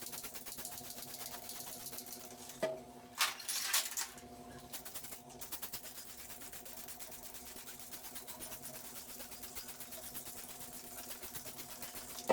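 A small motor runs steadily with a fast, even rattle and a faint hum. A click comes about three seconds in, then a brief scrape of handling.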